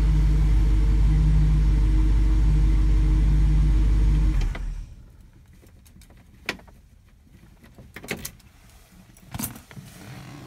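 Plymouth Belvedere's 440 big-block V8 idling with a steady low rumble, heard from inside the cabin, then shut off about four and a half seconds in. A few light clicks and knocks follow.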